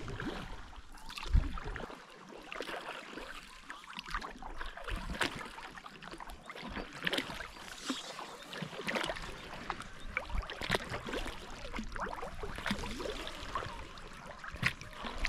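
Paddling a kayak: many small, irregular splashes and drips of water from the paddle blades.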